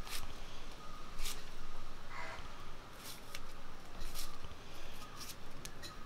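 Knife slicing shallots held in the hand: about ten crisp, irregularly spaced cuts, some in quick pairs. A brief call sounds about two seconds in.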